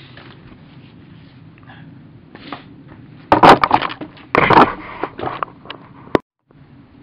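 Close crinkling and rustling handling noise in two loud bouts about halfway through, with smaller rustles after, then a sharp click and a brief dropout near the end.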